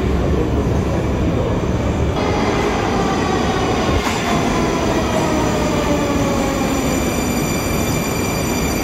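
Moscow metro train pulling into a station: a loud rumble of wheels on rails, and from about two seconds in the traction motors' whine falls steadily in pitch as the train brakes. The first two seconds hold only a low rumble.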